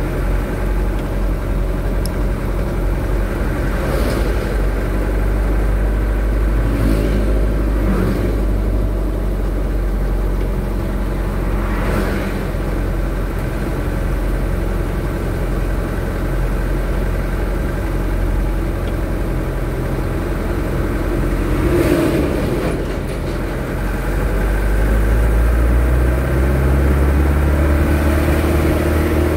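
Vehicle engine and road noise heard from inside a moving vehicle, running steadily with a few short knocks. Near the end the engine note rises and grows louder as the vehicle speeds up to pass a loaded dump truck.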